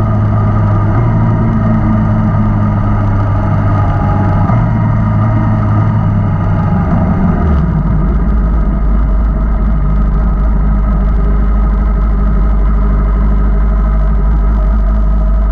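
Inline-four sport motorcycle engine running while riding, with wind noise; about halfway through the engine speed drops suddenly as the bike slows, and it then settles into a low, steady idle.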